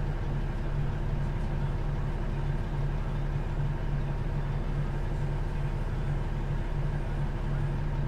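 Heavy diesel engine idling with a steady low hum, heard from inside a semi-truck's cab.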